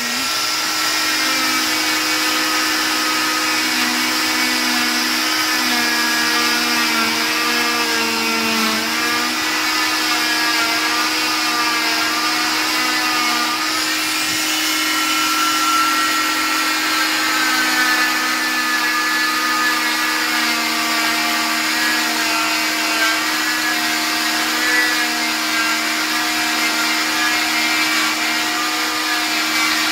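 Oscillating cast saw with a vacuum dust-extraction hose, running steadily while cutting off a leg cast. It gives a continuous motor hum and whine whose pitch wavers slightly as the blade works against the cast.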